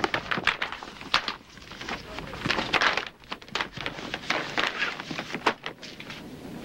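Paper rustling and crinkling as a large manila envelope is handled and opened, in irregular crackles.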